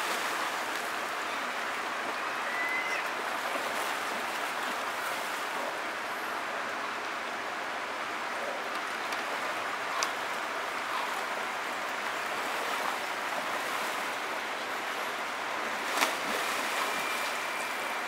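Steady rushing of a flowing salmon creek, with a couple of brief sharp clicks, the louder one near the end.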